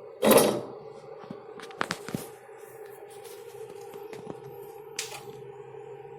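Tools and parts being handled at a repair bench: a loud knock or rustle just after the start, then scattered sharp clicks and taps, over a steady hum.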